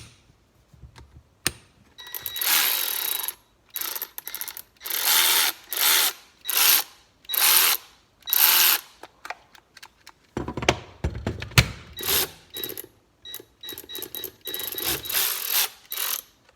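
Ryobi 18V One+ cordless 3/8-inch ratchet's motor running in a long series of short trigger bursts, a whirring spin that starts and stops about every half second to a second, with clicks in between.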